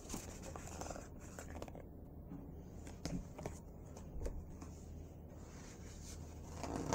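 Faint rustling and soft taps of a picture book's paper pages being turned and handled, with a few slightly louder knocks about three and four seconds in.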